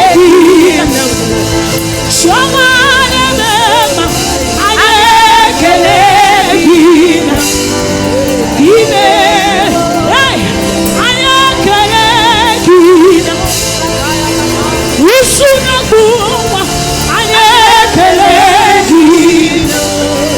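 Gospel singing over instrumental backing: a solo voice sings phrases with heavy vibrato, often scooping up into the notes.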